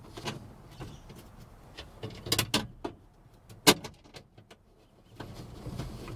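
A few sharp clicks and knocks of dash parts being handled and fitted inside a pickup cab. There is a quick cluster about two and a half seconds in and a single louder knock shortly after.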